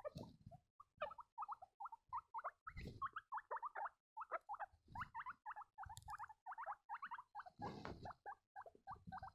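Baby guinea pigs squeaking: a long run of short, high squeaks, several a second, with a few soft thumps from movement.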